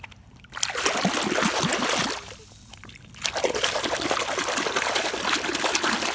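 Running water splashing over a small muddy toy being rinsed clean, in two spells: from about half a second in to about two seconds, then again from about three seconds on.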